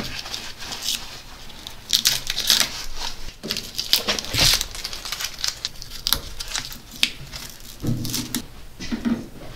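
Blue painter's tape being peeled off a tractor's painted dash around the gauges and crumpled in the hand: short, irregular rips and crinkles.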